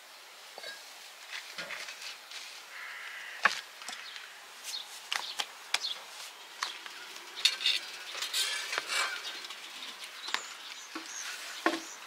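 Irregular clicks, taps and scrapes of hand food preparation, with a fork clinking against a steel bowl of butter. Faint bird chirps sit behind them.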